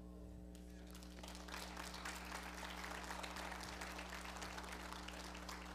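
Congregation applauding, a dense patter of many hands clapping that starts about half a second in.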